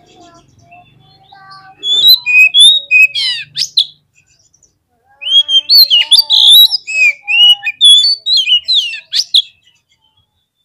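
Oriental magpie-robin (kacer) singing in an agitated, fighting style: two phrases of loud, varied whistles and rapid sweeping notes, the first about two seconds in and a longer one from about five seconds, with a short pause between.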